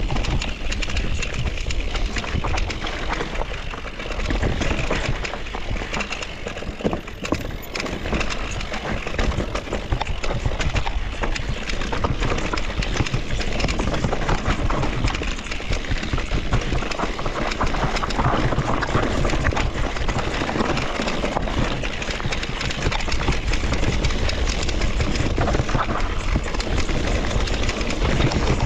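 Mountain bike riding down a dirt forest trail: a steady rush of tyre and wind noise, with the bike rattling and knocking over bumps throughout.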